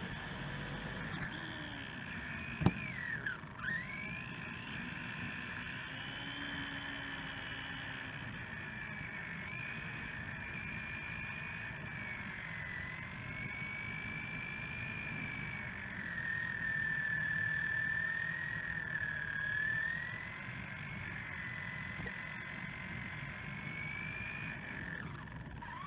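Electric motor of a Helion Animus 18SC RC short-course truck whining, its pitch rising and falling with speed, over a steady low rumble. A single sharp knock about two and a half seconds in.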